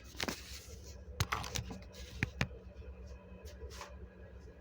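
Scattered light clicks and taps, a few in quick succession and then sparser, over a low steady hum.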